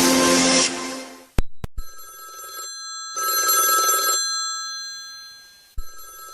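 An electronic track fades out in the first second. A few clicks follow, then a classic telephone-bell ringtone rings in bursts of about a second each, three times.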